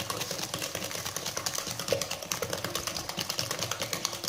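Wire whisk beating eggs and sugar in a glass bowl: a fast, even run of clicks as the wires strike the glass.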